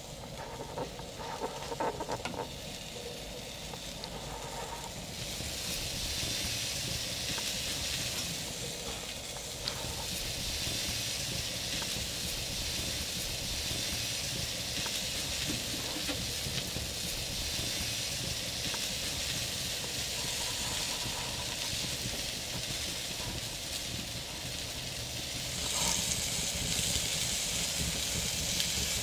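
Sausages sizzling on a grill grate over a wood fire: a steady hiss of fat and juices that sets in about five seconds in and gets louder near the end. Before that there are a few light clicks and rustles.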